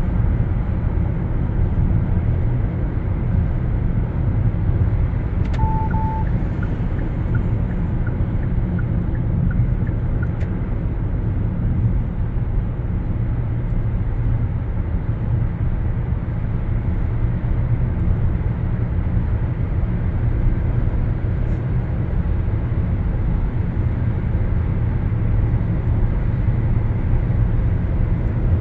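Steady low road and engine rumble heard from inside a moving car's cabin. About six seconds in comes a short double beep, then faint ticking, about two a second, for a few seconds.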